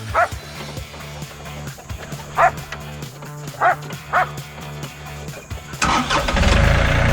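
A dog barking in short sharp yips, about four times, over a low steady hum. Near the end a tractor engine comes up loud and runs steadily.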